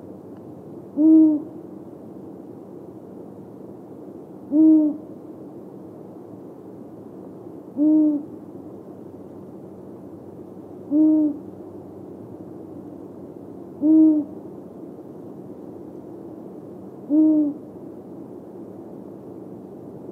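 Long-eared owl hooting: six single low hoots, each short and slightly arched in pitch, repeated about every three seconds over faint steady background noise.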